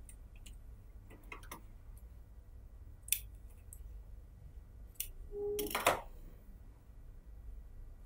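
Fabric being handled by hand: scattered soft clicks and rustling, with a short, louder rustle about six seconds in.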